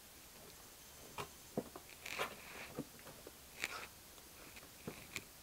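Faint, scattered scratches, soft clicks and short rustles from a cat shifting about inside a cardboard box.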